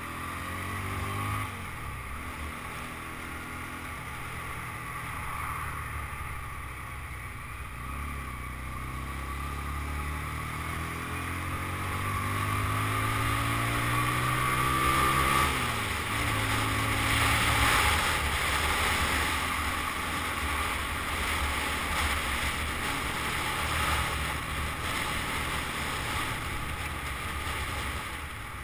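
Motorcycle engine running under way, its note slowly rising and then dropping as the rider changes gear, with a clear drop about fifteen seconds in. Wind rushes over the microphone, strongest just after the midpoint.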